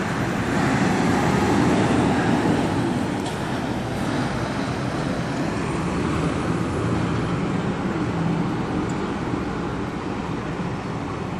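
Steady rumbling background noise with a hiss over it, of the road-traffic or vehicle kind. It is a little louder in the first few seconds and eases slightly after.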